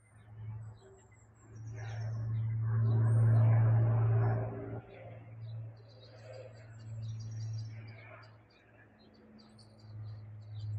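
Distant low drone of an Avro Lancaster's four Rolls-Royce Merlin piston engines, swelling about two seconds in, easing off after about five seconds and rising again near the end. Small birds chirp and tweet throughout.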